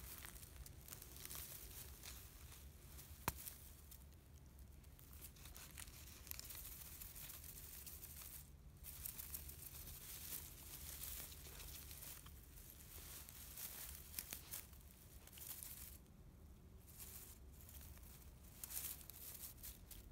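Faint, irregular rustling and crackling as a black Labrador puppy chews and mouths a canvas retrieving dummy in dry grass, with one sharp click about three seconds in.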